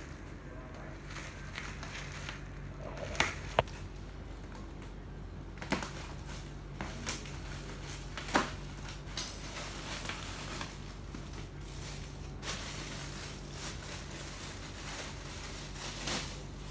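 Bubble-wrap and plastic packaging being torn open and rustled by hand, with scattered sharp crackles and snaps.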